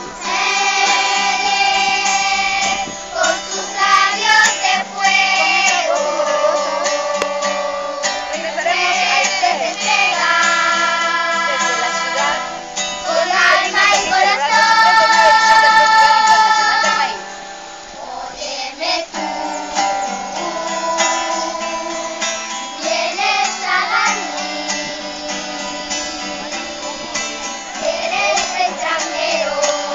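Children's choir singing, accompanied by an acoustic guitar. The singing is loudest through the middle and drops to a softer passage a little past halfway.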